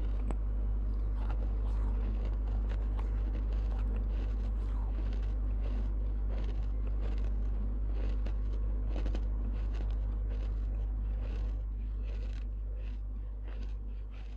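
Close-miked crunching and chewing of baked clay pot pieces held against a lavalier microphone: many small sharp crackles over a steady low electrical hum. A cloth rustle comes near the start as a scarf is rubbed across the mouth.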